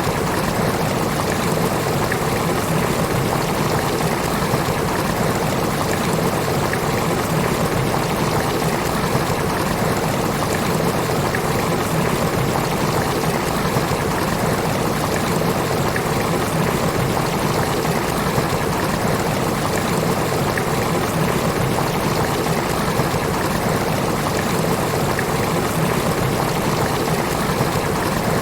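Steady rain falling, an even hiss of water without pause or change.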